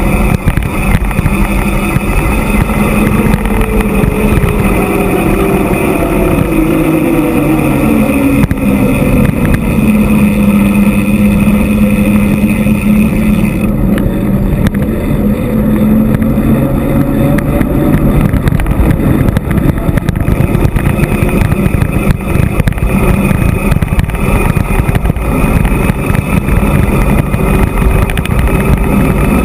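Heavy wind rushing over the microphone of a bike-mounted camera on a fast descent of a paved mountain road. Under it, a low drone falls in pitch over the first ten seconds, then holds steady.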